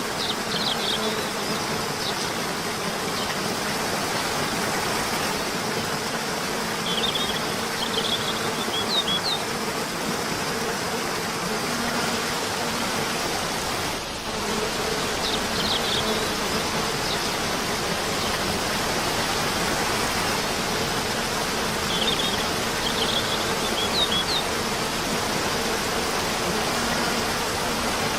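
Steady rushing of a waterfall with a low, even buzz underneath and small clusters of short high chirps a few times. The same stretch repeats about every fourteen seconds, as in a looped recording.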